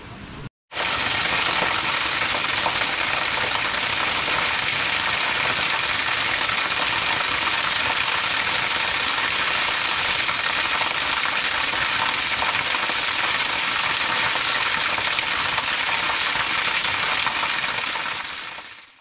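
Thin waterfall pouring onto stone slabs and rocks: a steady splashing hiss. It starts abruptly a moment in and fades out near the end.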